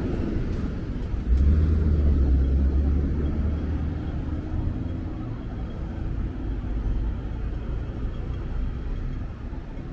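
City road traffic, with a vehicle engine rumbling close by from about a second in, swelling and then easing off over a few seconds.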